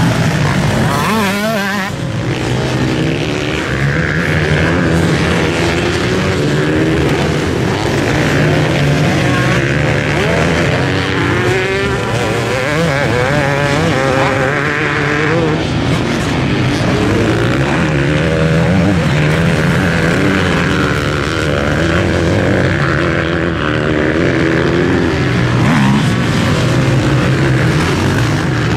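A motor vehicle engine running continuously, with its pitch wavering up and down.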